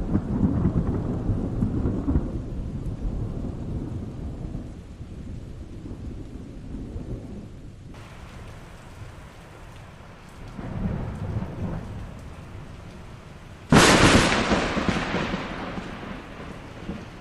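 Thunderstorm with rain: a low thunder rumble fading away, a second weaker rumble, then a sudden loud, close thunderclap near the end that dies away over a couple of seconds. Rain hisses steadily underneath.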